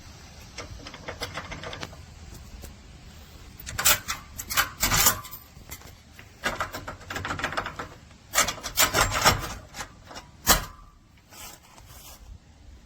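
Master Lock 389DAT trailer coupler lock being worked by hand: its metal parts click and scrape in irregular bursts, as the lock is shown failing to lock.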